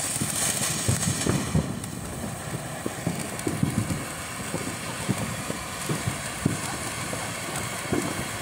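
Ground fountain fireworks spraying sparks: a loud hiss that dies away in the first two seconds, then a softer spray with irregular low pops and crackles.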